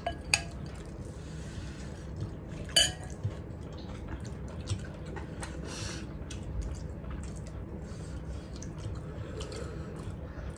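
Tableware clinking as people eat: two sharp clinks of a metal spoon against a dish, the first just after the start and the louder one about three seconds in, with a few softer clicks after them.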